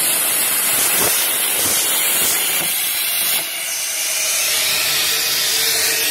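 CNC plasma cutting torch cutting steel, a loud steady hiss. About three and a half seconds in the sound changes abruptly and drops a little as the arc goes out, and a hiss goes on after it.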